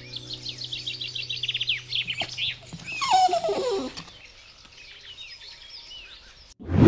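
Small birds chirping in a rapid run of short, high notes, then more sparsely, with a louder call sliding down in pitch about three seconds in. A loud, short thump comes just before the end.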